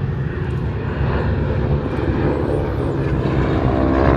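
Propeller-driven aircraft engine droning as the plane flies past, growing louder near the end.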